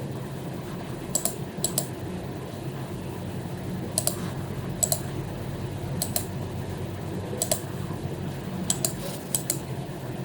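Sparse, irregular clicks from an HP membrane keyboard with lubed keycaps and a mouse, many coming in quick pairs, over a steady low hum.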